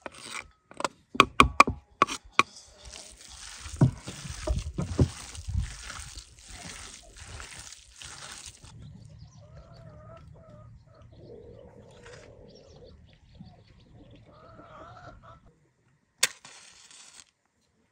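A knife scraping and tapping chopped greens off a wooden board into a metal bowl, then hands squelching as they knead raw minced meat, with hens clucking. Near the end a match is struck: a sharp scratch and about a second of flaring hiss.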